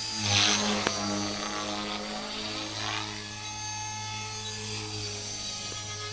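Electric Align T-Rex 450L RC helicopter flying: steady whine of its motor and spinning rotor. There is a brief louder rush about half a second in and a single sharp click just before one second.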